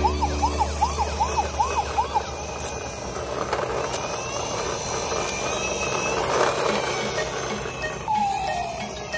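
Toy fire truck's electronic siren whooping rapidly, about three rise-and-fall wails a second, cutting off about two seconds in. A rough, gritty rolling noise follows as the plastic toy truck runs across stone paving.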